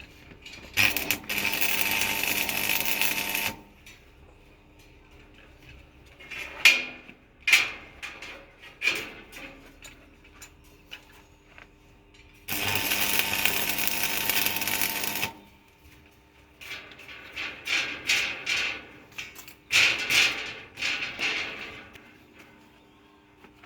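A small power tool runs twice, about three seconds each time. Between the runs come scattered short metallic clicks and knocks.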